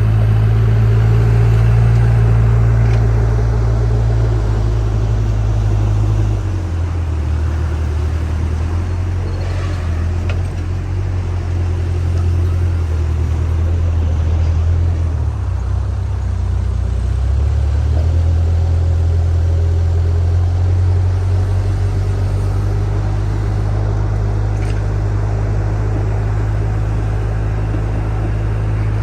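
Backhoe loader's diesel engine running steadily under load, its speed dropping about six seconds in and picking back up about eighteen seconds in.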